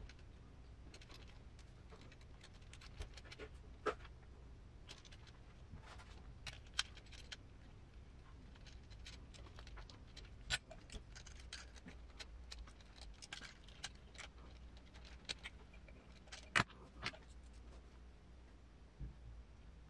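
Irregular light clicks and taps of hand tools and small metal and plastic parts being handled while working on a scale RC truck's suspension, with a sharper click about three-quarters of the way through.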